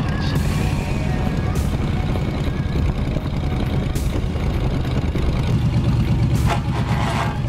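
1953 Mercury flathead V8 running steadily as the car drives along, a low continuous engine note, with road and wind noise on a microphone mounted outside the car. A few short gusts of wind noise come and go.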